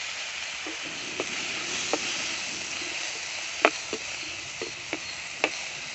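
Tomatoes, shallots and garlic sizzling in hot oil in a clay pot, a steady hiss, with scattered sharp clicks of a metal slotted spatula stirring against the pot.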